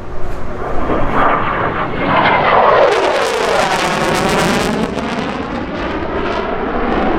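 F-16 fighter jet's engine noise as it passes over, swelling about a second in and loudest in the middle, with a swirling, phasing sweep in its tone as it goes by, then easing off toward the end.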